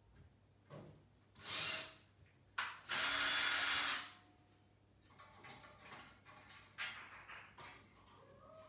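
Cordless drill run in two bursts at a metal wall bracket, a short one about a second and a half in and a longer, louder one around three seconds in. After that come small clicks and a sharp knock near the seven-second mark as the bracket is handled.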